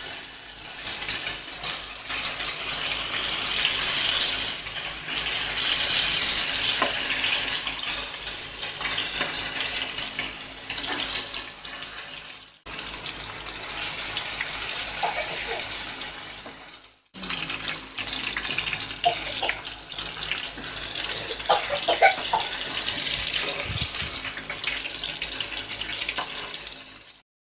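Fish pieces shallow-frying in hot oil in an iron pan, sizzling steadily with scattered small pops. The sizzle drops out abruptly twice, about twelve and a half and seventeen seconds in.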